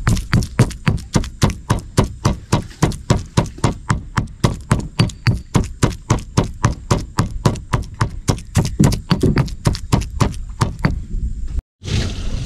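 Pestle pounding dried chillies and shrimp paste (belacan) in a mortar for sambal: steady, even strokes about four a second. The pounding cuts off abruptly near the end.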